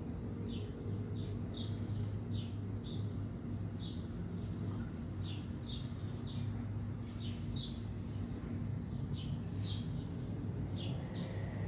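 A small bird chirping over and over in short, high notes, about two a second at uneven spacing, over a steady low hum.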